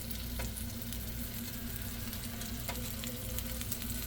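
Meatballs frying in a pan, a steady sizzle with fine crackling over a low steady hum. Two brief clicks, about half a second in and again near three seconds.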